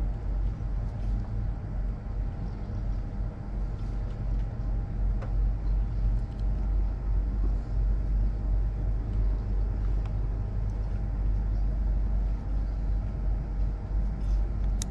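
Steady low machinery rumble with a faint, steady hum above it.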